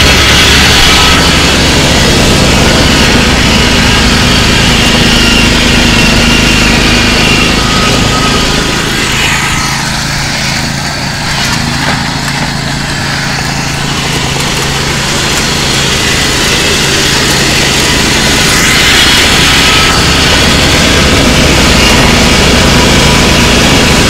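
A homemade halftrack's small engine running steadily, a little quieter for a few seconds in the middle.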